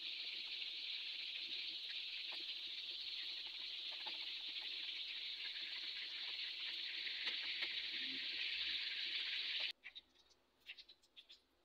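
Battered chicken fillet pieces deep-frying in hot oil in a pan, a steady sizzle with a few faint clicks. The sizzle cuts off suddenly near the end, leaving only faint clicks.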